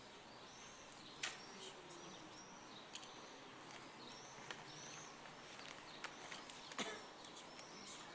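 Faint open-air ambience with small birds chirping in short, arched calls, and a few sharp clicks, the loudest about a second in and again near the end.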